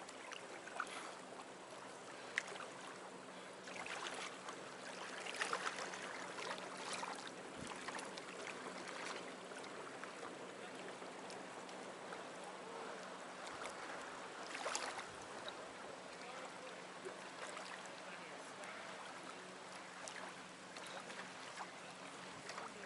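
Lake water lapping and splashing around a kayak and a swimmer, with louder splashes about five seconds in and again near fifteen seconds, over a faint steady low hum.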